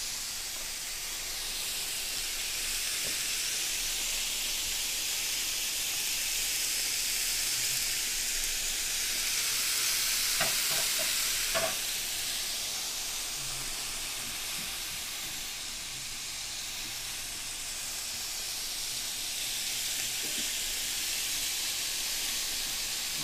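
Pork chops sizzling on a round electric grill plate: a steady frying hiss, with a couple of small clicks near the middle.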